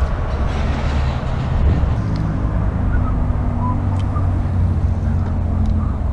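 Steady low engine rumble, with a few faint short high blips in the middle.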